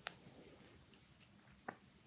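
Hands massaging skin: faint soft rubbing with two brief sharp skin-on-skin clicks, one at the start and one near the end.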